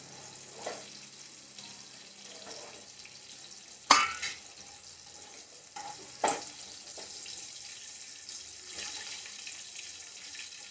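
Cauliflower florets sizzling in hot oil in a kadai while a wire-mesh skimmer scoops out the fried pieces. A few sharp metal clinks of the skimmer against the pan cut in, the loudest about four seconds in and another just after six seconds.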